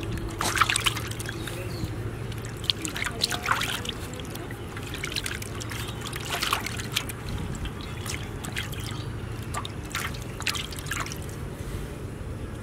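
Water trickling and dripping, with irregular small splashes.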